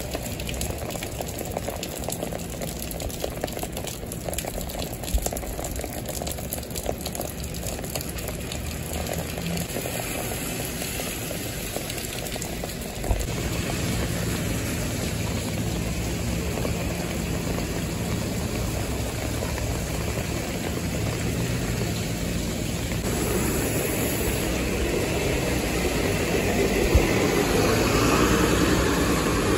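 Rain pattering on a wet city street, with traffic running. About 13 seconds in, a truck's engine hum comes in steadily. Near the end a city transit bus drives past close by, swelling to the loudest point of the clip.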